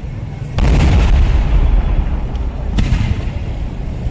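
Two heavy firework blasts from a traditional Kerala temple vedikkettu, about two seconds apart, each trailing off in a long rolling rumble.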